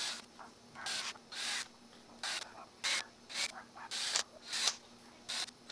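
Cordless drill boring small holes in a flat dust-shoe plate in a series of short, separate bursts, about a dozen in all, each a brief hiss.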